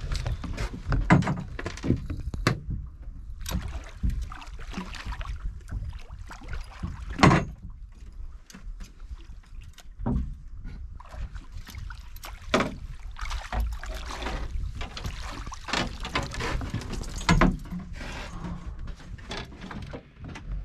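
Irregular knocks, clunks and rattles of handling inside a small open fishing boat, over a steady low rumble of water and wind.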